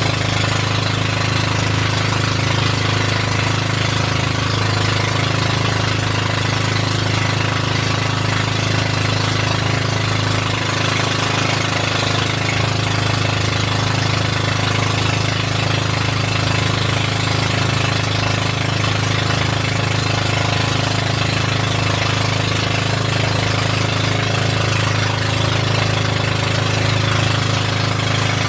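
Motorboat engine running steadily at a constant speed, loud and close, with a steady hiss over its low drone.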